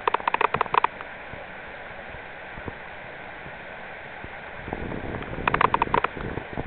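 Mountain stream water running steadily. Twice, near the start and again about five and a half seconds in, it is broken by a short burst of rapid, evenly spaced clicking, which is the loudest sound.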